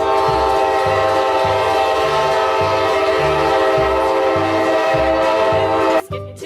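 Train horn sound effect: one long, steady blast that cuts off suddenly about six seconds in, over a children's music beat.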